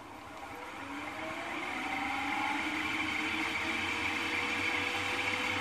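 Milling machine spindle motor starting up: its whine rises in pitch and grows louder over about two seconds, then runs at a steady speed.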